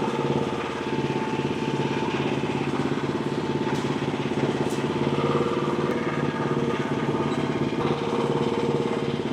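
Frontier OS35 hydraulic sawmill's engine running steadily between cuts.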